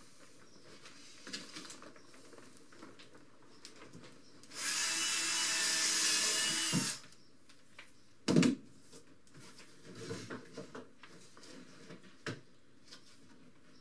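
Cordless drill running for about two seconds, drilling into a black Vetus rubber rubbing strake. A sharp knock follows about a second and a half later, among light taps and handling noises.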